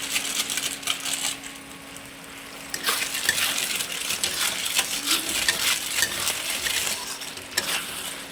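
Metal spoon stirring and scraping mixed vegetables in a metal cooking pan, a quick run of clinks and scrapes that grows busier about three seconds in.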